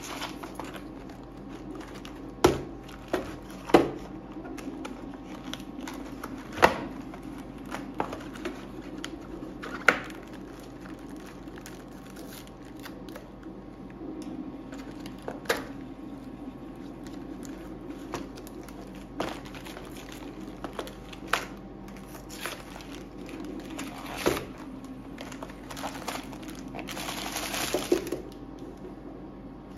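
A cardboard brownie box opened and handled on a stainless-steel cold plate: scattered sharp taps and knocks, then a rustling stretch near the end as foil-wrapped brownie bars slide out onto the metal. A steady hum runs underneath.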